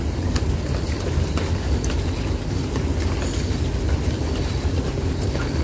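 Steady rain falling on large leaves around a bird's nest, a constant low rush with scattered sharp drop ticks.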